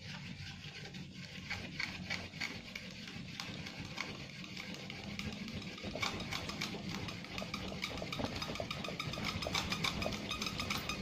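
Wooden hand-drill spindle spun back and forth between the palms in a fireboard notch: a rapid, scratchy rasping of wood on wood, turned slowly at the start of a friction fire. It grows denser and a little louder about halfway through.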